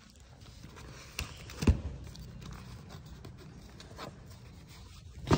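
A few sharp knocks and thumps from a cardboard parcel box being picked up and handled on a hard stone floor, over a steady low hum.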